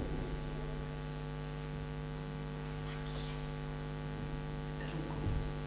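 Steady electrical mains hum with a ladder of evenly spaced overtones, a buzz carried on the recording's sound track, with a couple of faint short hisses.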